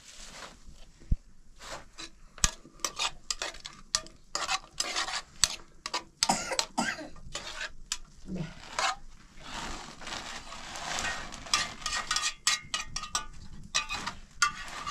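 Irregular clatter of knocks, clinks and scrapes, as of hard objects being handled, with stretches of hiss.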